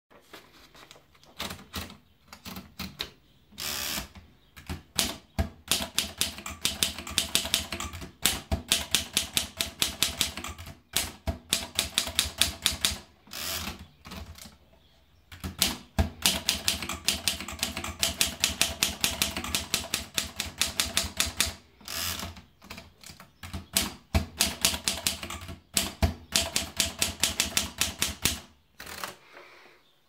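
Underwood Standard Portable typewriter: a few knocks as the paper is fed in, then keys struck in fast runs of sharp clacks. The runs break off a few times where the carriage is returned to start a new line.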